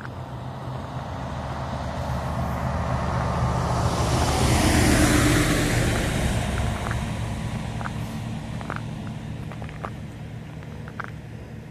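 A car driving past on a road: its tyre and engine noise builds, peaks about five seconds in and then fades away.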